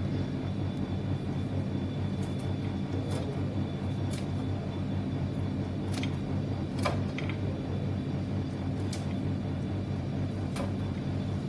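Kitchen scissors snipping peeled garlic cloves finely, a sharp snip every second or so, over a steady low hum.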